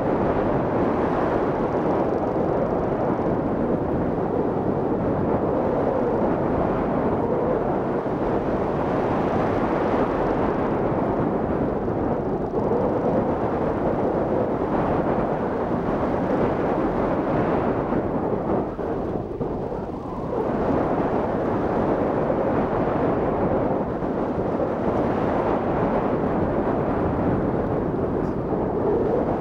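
Steady rush of airflow buffeting the microphone of a camera mounted on a hang glider's wing in flight, a deep rumbling wind noise that eases briefly about twenty seconds in.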